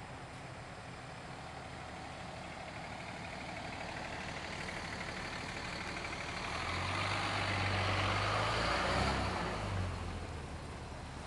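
The truck's 4.3-litre V6 idling steadily at the tailpipe, growing louder for a few seconds about two-thirds of the way through and then settling back.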